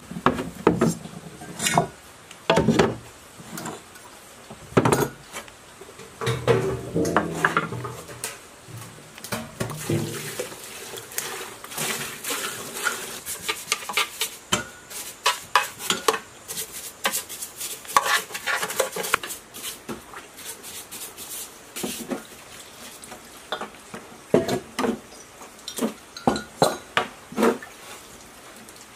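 Aluminium parts of a small petrol generator engine (the cylinder and the crankcase) being washed in a plastic tub of liquid. Liquid splashes, metal knocks and clinks against the tub, and a brush scrubs the oily crankcase.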